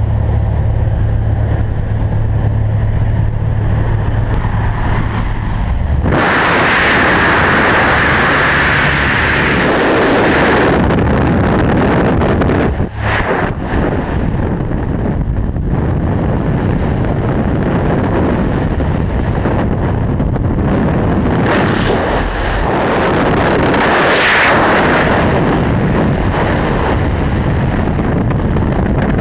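Small propeller aircraft's engine droning steadily inside the cabin with the jump door open. About six seconds in, the skydiver exits and a sudden loud rush of freefall wind buffets the helmet camera's microphone; it carries on with swells to the end.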